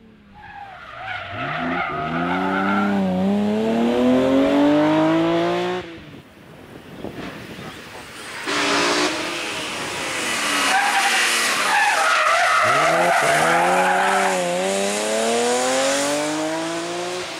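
BMW M3 E36 rally car's straight-six engine at full throttle, rising in pitch with short dips at gear changes or lifts. It cuts off suddenly about six seconds in, and a second flat-out run starts about two and a half seconds later.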